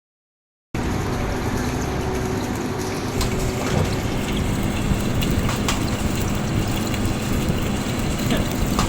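Metal lathe running and cutting: a steady mechanical noise with a low hum and occasional sharp ticks, starting suddenly less than a second in.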